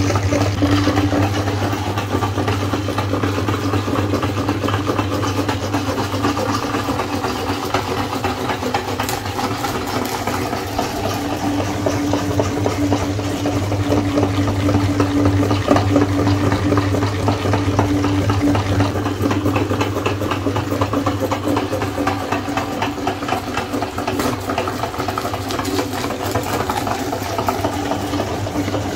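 Electric meat grinder running steadily under load as it grinds ice cream bars and pushes them out through the cutting plate: an even motor hum with a fine crackle over it.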